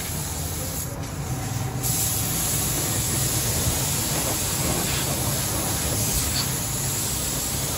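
Gravity-feed paint spray gun hissing steadily as compressed air sprays paint, getting a little louder about two seconds in, over a steady low hum.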